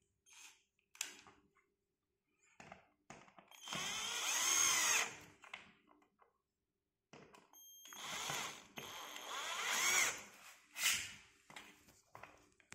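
Cordless drill driving cam-lock connector bolts into a particleboard cabinet panel, in two runs of a second or two each with the motor pitch rising and falling, and a short third burst near the end. Light clicks and taps between runs as the bolts are handled.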